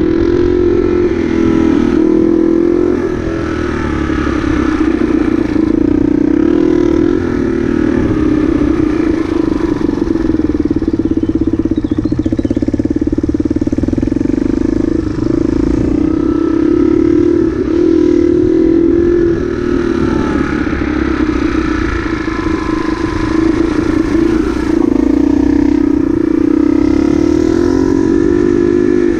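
Motorcycle engine running as the bike is ridden, its revs rising and falling repeatedly with the throttle.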